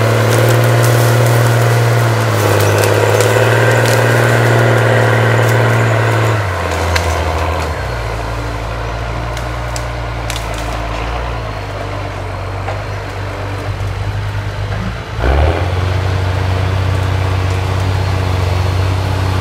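Diesel engine of a forestry tractor working hard, with sharp cracks of wood in the first few seconds. The engine drops to a lower speed about six seconds in, then picks up again at about fifteen seconds with a thump.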